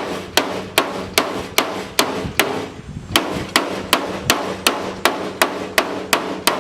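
Hammer blows on sheet-metal body panel steel, struck in a steady rhythm of about two and a half blows a second, each with a short metallic ring, with a brief break about halfway through.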